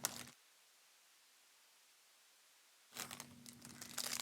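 A moment of rustling, then the audio drops to dead silence for about two and a half seconds. About three seconds in, the crinkling and handling of trading-card pack wrappers comes back, with a low steady hum under it.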